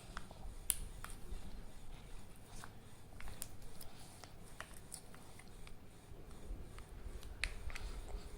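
Faint, scattered clicks and crinkles of a Kinder Joy's plastic capsule and wrapper being handled and opened.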